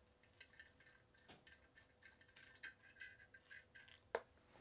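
Faint, irregular small ticks, about three a second, as the shipping screw of a JZ Vintage 12 condenser microphone is turned out by hand, with one sharper click near the end.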